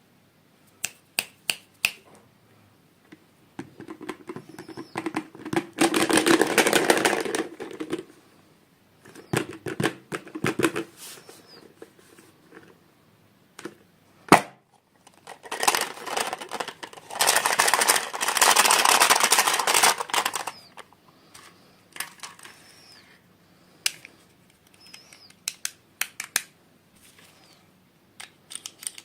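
Toy packaging being handled and opened: scattered sharp clicks and taps, with two longer stretches of dense crinkling and rustling.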